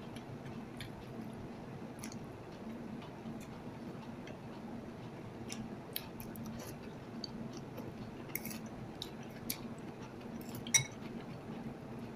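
Eating sounds: metal cutlery tapping and clinking against a bowl, with scattered small clicks, over a steady low hum. One sharp, ringing clink near the end is the loudest sound.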